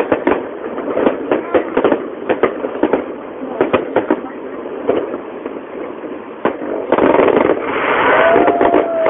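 Fireworks shells bursting in quick succession, with sharp bangs several times a second. About seven seconds in, the bangs give way to a denser crackling rush, and a long, slightly falling tone sounds near the end.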